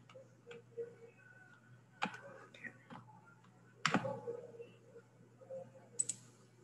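Scattered sharp clicks made at a computer, the loudest about four seconds in, over a faint low hum.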